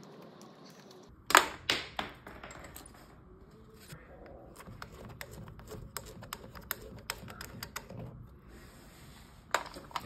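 Plastic caps being pulled off brass refrigerant quick-connect fittings and the fittings handled: a few sharp clicks a little over a second in, then a string of light taps and clicks.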